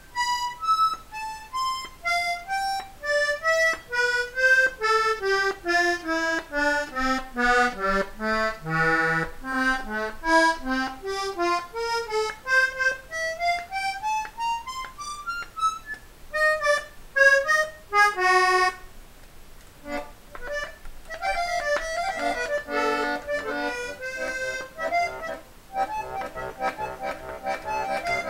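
Vintage Meinel & Herold button accordion being tried out: single notes step down in pitch one by one for about nine seconds, then climb back up. From about twenty seconds in it plays fuller chords with bass.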